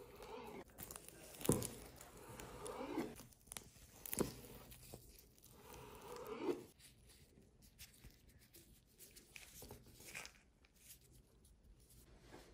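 Knife slicing through a nori-wrapped sushi roll: the seaweed sheet tearing under the blade, with two sharp knocks about 1.5 s and 4 s in. It goes quieter after about 7 s, leaving only faint small ticks.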